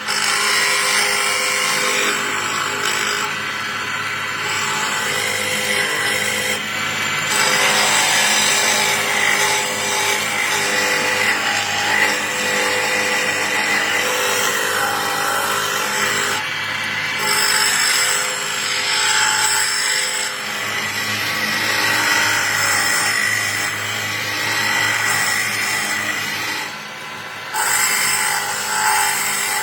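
A power tool running steadily, its motor hum under a continuous abrasive working noise, with brief breaks a few times where the sound cuts off and resumes.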